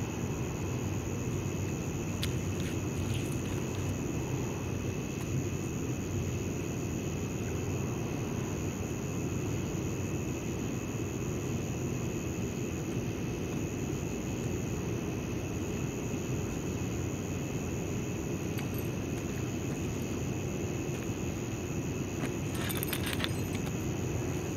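Steady low rumbling background noise with two faint, steady high tones over it. A few light clicks and rattles come about two seconds in and again near the end.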